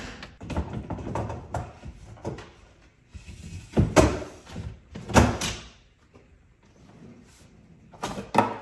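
Wooden pull-out cabinet shelf on metal drawer slides being slid out and pushed back in, with a string of knocks and clatters; the two loudest come about four and five seconds in.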